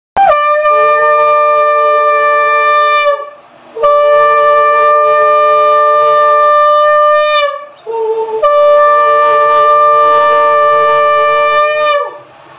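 Conch shell (shankha) blown three times in long, steady, loud blasts, each about three and a half seconds, with brief breaths between. This is the conch sounded to open a Hindu prayer.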